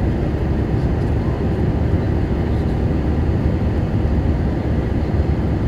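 Steady, deep, even rumble of jet engines and rushing air heard from inside the cabin of an Airbus A319 in flight after takeoff.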